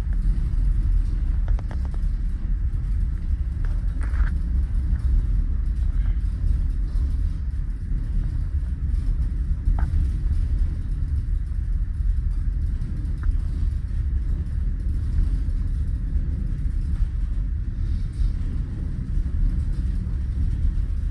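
Steady low rumble on board the ferry Pont Aven underway, with a few faint clicks.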